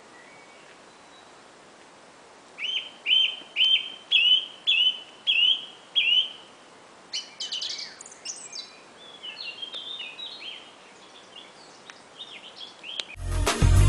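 Wild songbird singing: a run of about eight loud, evenly spaced repeated notes, then a quicker, higher, more varied twittering that fades. Music with a heavy beat cuts in right at the end.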